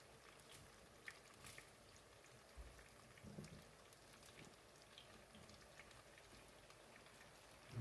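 Plantain slices frying in hot oil: a faint steady sizzle with scattered small pops and crackles, and a soft low knock about three seconds in.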